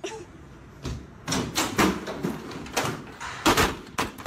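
A run of dull thumps and knocks as a person scrambles up onto a foam plyo box, her feet, knees and hands striking its padded sides and top; the loudest come about two seconds and three and a half seconds in.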